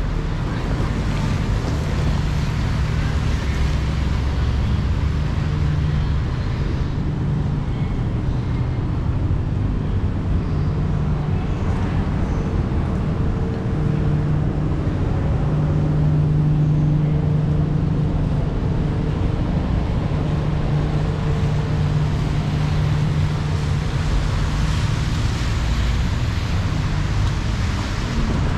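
Steady city street noise: a constant low hum of road traffic with an even hiss over it.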